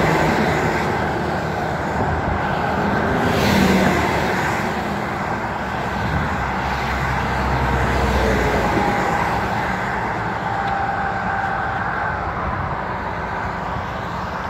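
Freeway traffic rushing past close by: cars and a semi-truck, their tyres and engines making a continuous roar that swells as each vehicle passes. The loudest passes come at the very start and about three and a half seconds in, and a deeper rumble builds between about six and nine seconds.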